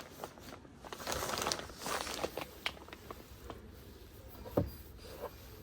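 Household handling noises: two short spells of rustling about a second and two seconds in, scattered light clicks, and one dull thump about four and a half seconds in, the loudest sound.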